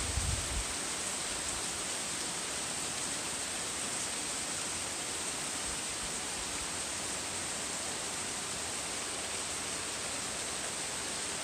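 Heavy rain falling steadily on trees and a lawn, an even, unbroken hiss. A few low thuds sound in the first half-second.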